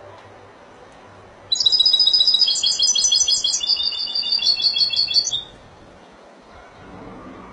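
Caged European goldfinch singing one burst of fast, high trilled song about four seconds long, starting about a second and a half in.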